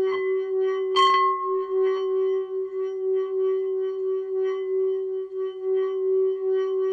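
Tibetan singing bowl sung by rubbing a wooden mallet around its rim: one steady low hum with ringing overtones and a gently pulsing loudness. About a second in, the mallet knocks sharply against the bowl and sets the overtones ringing brighter.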